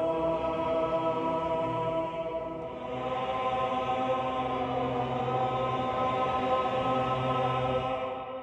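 Male choir singing long, held chant-like notes in a dark film score, the chord shifting about two and a half seconds in and fading near the end.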